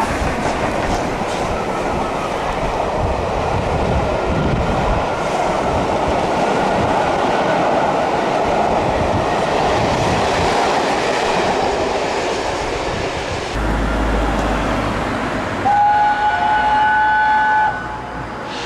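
A steam-hauled train passing close by, its rolling stock running over the rails. Then, after an abrupt change of sound against a low background rumble, the steam locomotive Tornado, a Peppercorn A1 4-6-2, gives one steady whistle of about two seconds near the end.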